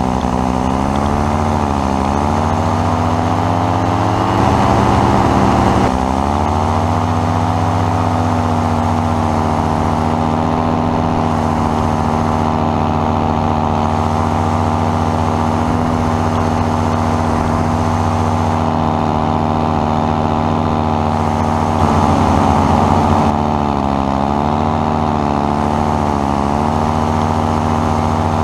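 Powered paraglider trike's engine and propeller running steadily, revved up louder for a couple of seconds about four seconds in and again about twenty-two seconds in, the pitch wavering up and down around those moments.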